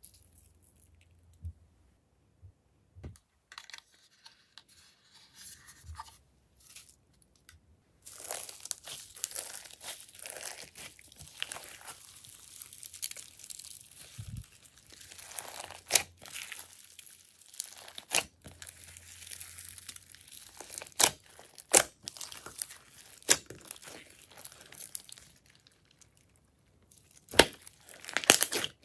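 Glossy slime mixed with sequins, glitter and foam beads being folded and kneaded by hand in a glass dish. It makes a dense stream of crackles and sharp clicks. For the first several seconds there are only occasional small clicks, as the mix-ins are scattered onto the slime.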